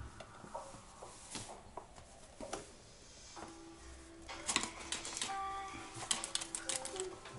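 Flour pouring from a paper bag into a metal hand-held flour sifter, then a dense run of quick clicks and rattles from the sifter being worked from about four and a half seconds in.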